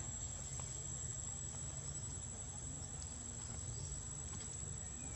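A steady high-pitched insect drone over a low, even rumble.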